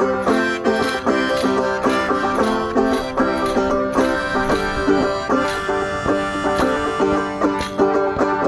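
Banjo played solo, plucked notes picked in a quick, even rhythm.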